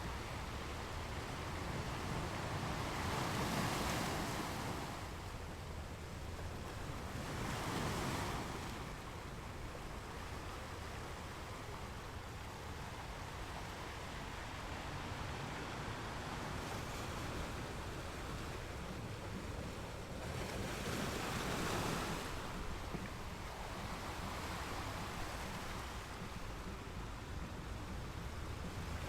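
Ocean waves breaking on the shore, swelling louder about 4, 8 and 22 seconds in, with a steady wash of surf in between.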